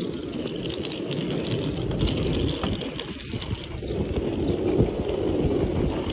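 Small wheels of hard-shell suitcases rolling over rough asphalt as they are pulled along, a steady grainy rumble.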